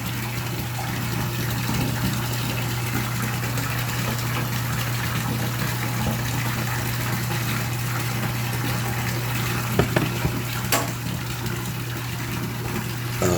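Water running steadily, with a low steady hum under it; a few faint clicks about ten seconds in.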